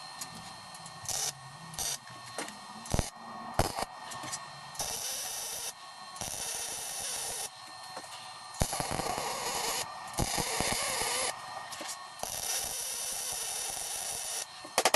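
Lincoln Power MIG 210 MP MIG welder laying a string of short weld beads: separate bursts of arc hiss, a few brief ones at first, then longer ones of a second or two with short pauses. The beads are skipped around the DOM tube sleeve to keep it from warping.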